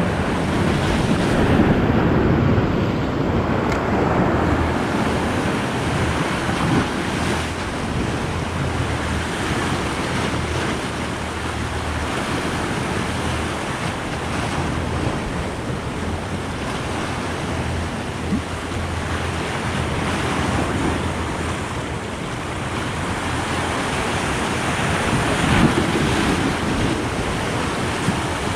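Sea surf breaking and washing on a rocky open-ocean shore, a steady rushing noise that swells louder near the start and again near the end, with wind buffeting the microphone.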